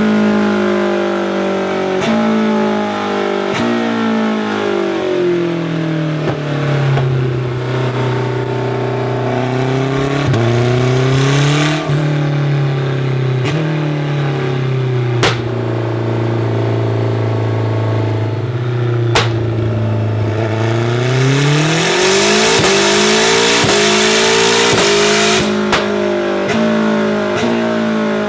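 Turbocharged race engine of a BMW E36 M3 hill-climb car running on a dyno under paddle-shift control. Its revs step down through the gears and settle into a low, steady note, broken by a few sharp exhaust pops. About 21 s in it climbs into a loud, harsh full-throttle pull that cuts off abruptly a few seconds later.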